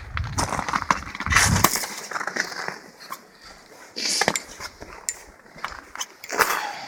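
Footsteps on thin river ice, the ice crunching and cracking sharply under each step: a sign that the ice is breaking up.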